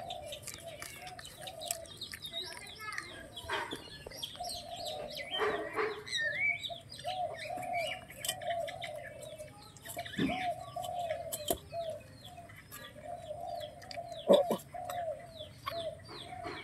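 Several puppies whining and squeaking in runs of short rising-and-falling cries, with higher squeaks over them and a few sharp clicks.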